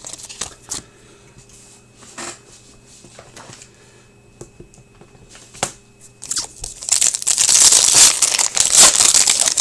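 Hockey card pack wrapper being torn open and crinkled, loud for the last three seconds. Before that, a few scattered light clicks and taps as cards are handled.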